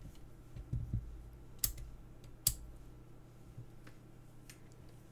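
A handful of light clicks and taps, with a soft thud near the start, from hands handling test gear on a workbench; the sharpest click comes about two and a half seconds in.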